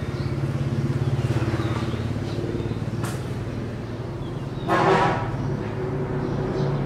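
A motor engine running steadily, with one short, loud toot like a vehicle horn about two-thirds of the way through.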